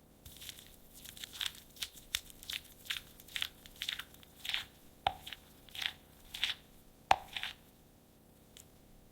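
An irregular series of short, fairly quiet crunches or crackles, about two a second, dying away near the end.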